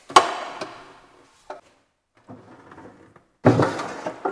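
Pull-out kitchen bin parts being handled and fitted in a cupboard: a sharp clack that rings off briefly, a light click, some rustling, then a heavier thud near the end.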